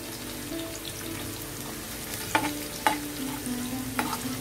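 Onion rings and diced carrot sizzling in oil in a frying pan as a metal spatula stirs them, the spatula knocking sharply against the pan three times.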